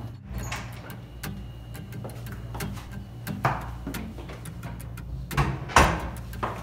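Wooden interior door opened by its lever handle and then shut, with a knock from the door closing about six seconds in, the loudest sound; light clicks and handling taps run throughout.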